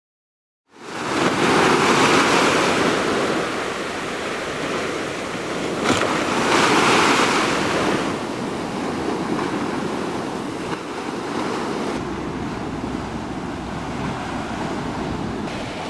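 Small waves breaking and washing up a sand beach, starting under a second in and swelling twice, about a second and about six seconds in.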